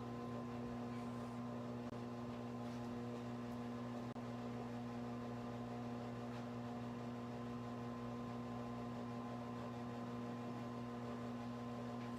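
Steady electrical hum: a low, unchanging drone with several fainter higher tones above it.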